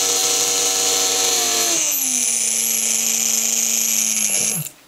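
Small 12-volt cassette player DC motor overvolted on a rectified variac, running flat out with a loud, steady whine. About two seconds in, its pitch drops and a thin high squeal sets in. Near the end it cuts off suddenly as it shorts out, its winding and brushes burnt.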